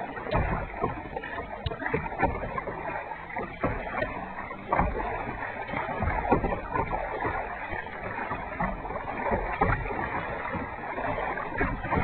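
Kayak paddle strokes: the blades dipping into the water with irregular splashes and drips over a steady low rush.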